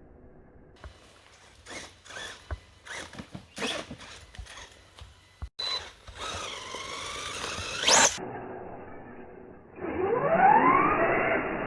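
Electric motor of a Redcat Volcano RC monster truck whining as it revs, rising in pitch, one run climbing steeply and stopping short about eight seconds in, another rising from about ten seconds in. Sharp knocks and clatter come before it.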